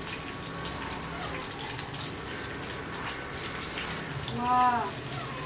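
Small whole fish frying in hot oil in a pot on an induction cooker, with a steady sizzle. About four seconds in, one short pitched call rises and then falls.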